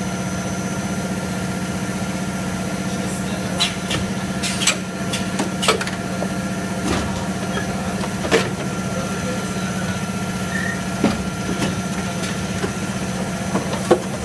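HDPE extrusion blow moulding machine running, with a steady hum and several sharp clicks and knocks at irregular intervals as the blue parison extrudes from the die head and the moulds cycle.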